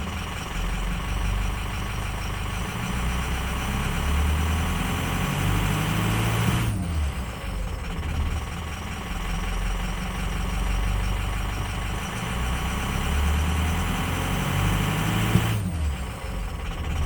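A 6.0-litre truck engine idling roughly. Twice, its revs climb slowly over a few seconds and then fall back, about seven seconds in and again near the end. The owner presents this as a fault: a rough idle with a slow rpm climb.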